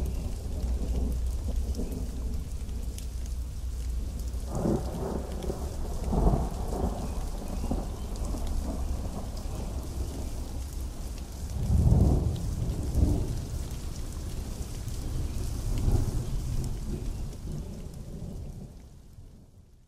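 Pouring rain hissing steadily, with thunder rumbling several times, loudest about twelve seconds in; the whole fades out near the end.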